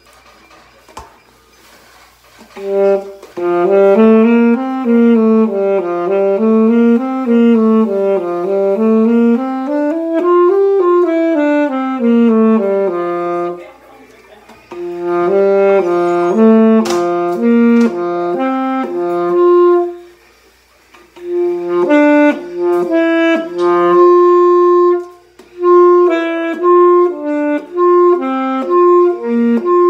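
Alto saxophone playing D practice exercises. It plays quick scale runs up and down several times over, pauses briefly, then plays separate notes, and after another short break a phrase ending in long held notes.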